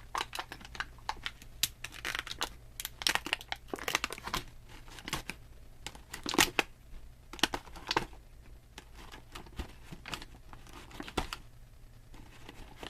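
Plastic toy packaging crinkling and crackling in irregular bursts as small Shopkins toys and their plastic baskets are pulled out of a 12-pack, with the loudest crackle about halfway through.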